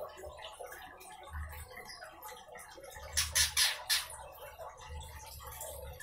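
A bird chirping, with a quick run of four or five sharp chirps about three seconds in and fainter scattered chirps around it.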